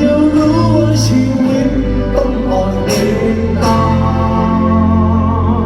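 Live rock band music with sustained bass and chords and a wavering held note. Cymbal crashes come about one second in and twice around three seconds in.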